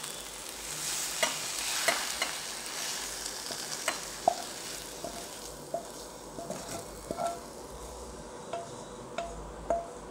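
Wooden spatula scraping cooked vegetables out of a steel kadai into a bowl: a scratchy scraping at first, then a string of light knocks of the spatula against the pan, some ringing briefly.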